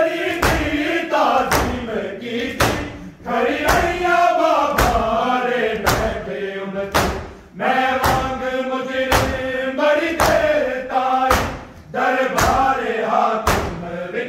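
Crowd of mourners chanting a noha refrain together, with loud unison matam chest-beating, open hands striking bare chests about once a second in time with the chant.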